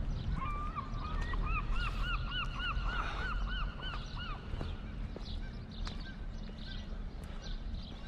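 A gull calling from the harbour: a quick run of a dozen or more short, arched, rising-and-falling notes lasting about four seconds, with a low rumble underneath.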